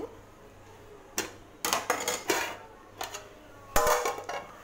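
Clinks and knocks of a metal pan lid and a slotted spoon being handled as the lid is lifted off a cooking pan. Several short metallic strikes, the loudest near the end.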